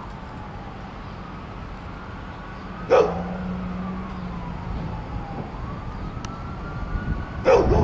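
A siren wailing in the distance with slow rising and falling pitch, over a low steady hum. A dog barks sharply twice, about three seconds in and near the end.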